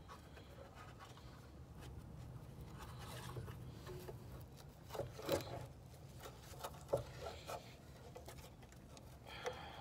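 Hands working a rusty brake caliper on a car's front hub: light scraping and rubbing with a few sharp metal clicks and knocks, the loudest about halfway through, over a low steady hum.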